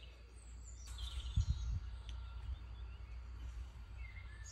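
Quiet outdoor background with a steady low rumble and faint bird chirps, broken by a few dull low thumps about a second and a half in.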